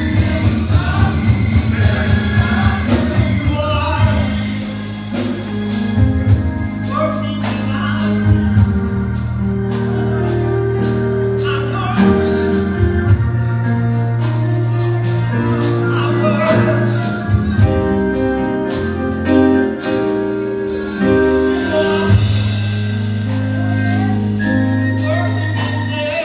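Gospel music: singing over held chords with a steady beat.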